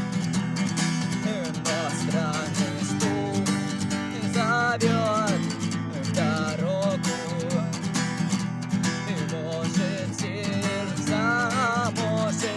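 Cort AD890CF acoustic guitar strumming steady chords, with a melodic line above them whose notes slide and waver in pitch.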